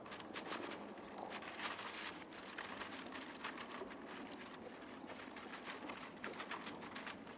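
Close-miked soil and leaf litter giving a dense, irregular crackling and rustling made of many small clicks.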